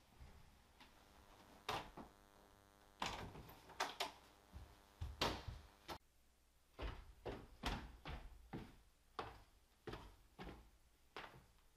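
Footsteps on wooden basement stairs: a regular run of dull thuds, about two a second, in the second half. Before them come a few irregular knocks and thumps over a faint steady hum.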